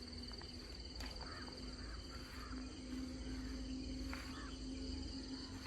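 Insects trilling steadily in a high, finely pulsing chorus at dawn, over a steady low hum. A few faint chirps are heard.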